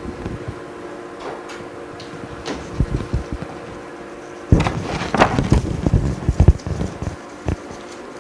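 Knocks and clatter of hard objects being handled, with a dense run of them a little past halfway and a last single knock near the end, over a steady low hum.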